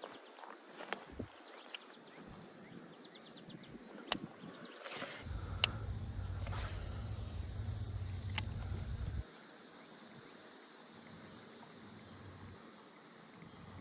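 Insects buzzing in a steady high drone that swells up about five seconds in, with a few sharp clicks and a low rumble for several seconds in the middle.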